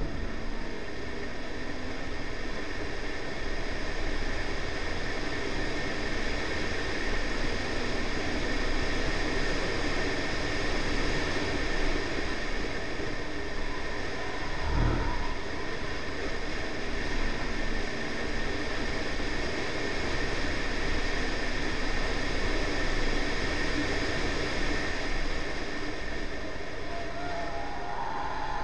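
Honda Civic 1.8 VTi with a B18C4 engine lapping a race circuit, heard from a camera mounted outside on the car's flank: engine, tyre and wind noise at a steady level, with a single thump about halfway through.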